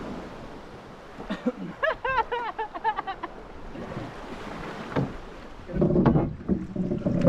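Water splashing and lapping around a small paddled wooden boat, with louder splashes about six seconds in and again near the end. A quick run of high, rising-and-falling vocal calls comes about two seconds in.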